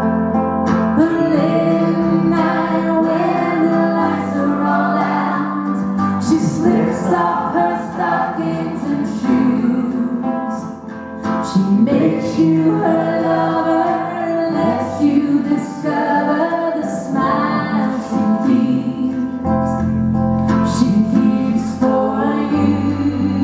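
A woman singing lead with a live band, over strummed ukulele, electric guitars, keyboard and drums.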